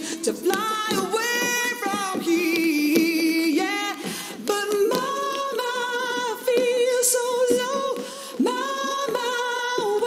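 A woman singing a slow song with long held, wavering notes over very sparse accompaniment. A few sharp clicks of tap shoes striking the stage floor are scattered through it.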